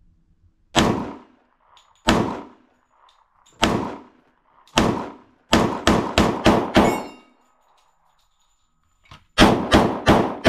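Sig Sauer P320 XTEN Comp 10mm pistol firing: four single shots a second or so apart, then a quick string of five. After a pause of about two seconds, four more rapid shots come near the end.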